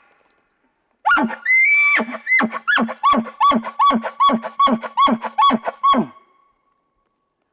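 Elk bugle call blown through a hunter's camo bugle tube: starting about a second in, a brief high squeal, then a run of about a dozen rapid chuckles, two or three a second, stopping about six seconds in.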